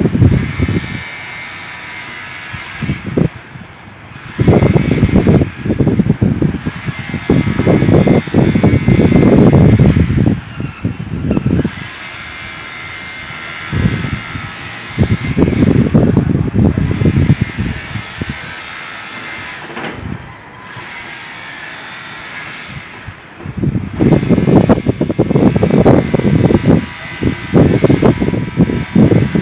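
Demolition hammer breaking concrete in bursts of rapid blows, each a few seconds long: about five bursts, with the longest run of hammering near the end. A steady mechanical hum continues between the bursts.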